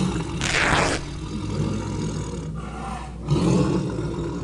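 Tiger roar sound effect: a loud, rough, low roar that swells again about three seconds in.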